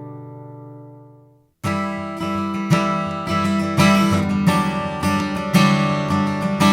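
1941 Gibson J-35 acoustic guitar: a held chord rings and dies away, then about a second and a half in strummed chords start abruptly and carry on.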